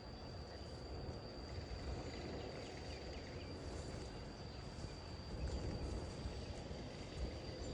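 Outdoor ambience: a steady high-pitched insect drone and a few faint bird chirps over the low rumble of distant road traffic.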